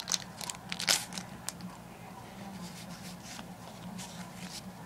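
Foil booster pack wrapper crackling as it is torn open, with a few sharp crinkles in the first second and a half, then softer rustles and clicks of the trading cards being pulled out and handled.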